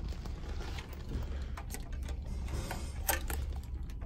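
Low steady hum with scattered light clicks and handling noise, then a sharper click about three seconds in as a plastic key card is pushed into a cabin door's card lock.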